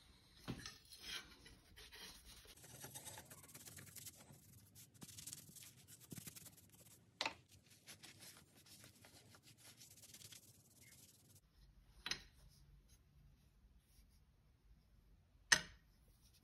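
Faint sound of a microfiber cloth rubbing and wiping along a sword blade and its wooden handle. Three sharp taps break in, the loudest near the end.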